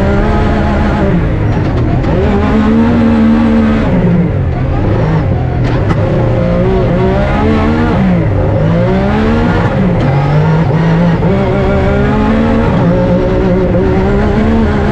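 Rally car engine at speed, its pitch climbing and dropping back several times as the driver accelerates and lifts.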